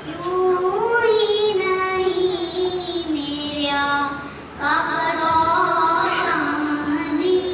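A child singing solo, holding long wavering notes, with a short break for breath about four and a half seconds in.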